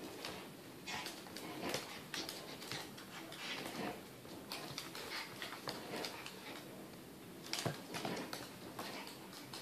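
Two Mi-Ki dogs play-wrestling on a wooden plank floor: claws tap and scrabble on the boards in quick irregular clicks, with short breathy huffs. A sharper bump comes about three-quarters of the way through.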